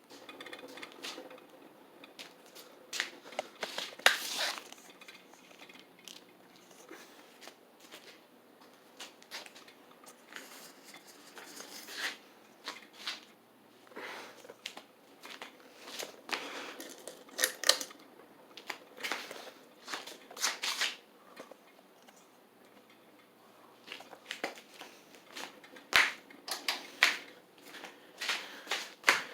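Harbor Breeze Vector Elite ceiling fan running on high, giving off irregular rattling and clicking, a rattle that this fan usually has.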